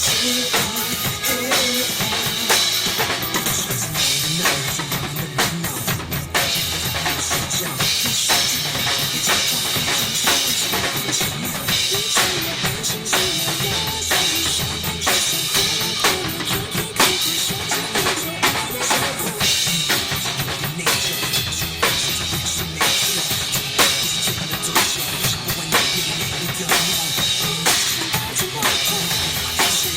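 Live band playing an instrumental passage of a pop song, driven by a steady drum kit beat with kick and snare.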